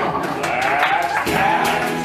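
Live band music: a guitar strumming, with hand percussion ticking steadily in time and voices over it.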